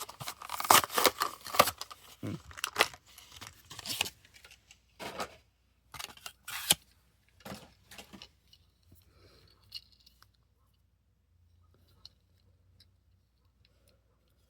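Cardboard and plastic blister packaging of a diecast toy car being torn open by hand: a quick run of rips and crackles for about four seconds, then a few scattered clicks and crinkles.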